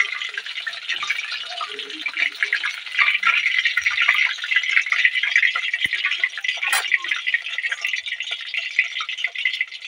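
Chicken pakoras deep-frying in hot oil in a kadhai: a steady, dense sizzling and crackling of the oil around the battered pieces.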